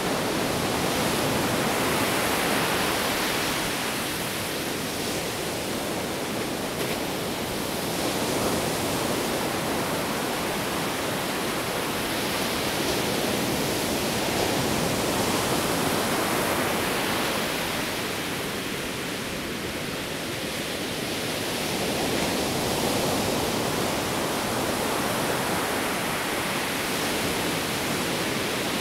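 Ocean surf breaking on a sandy beach: a steady rush of water that slowly swells and eases every several seconds.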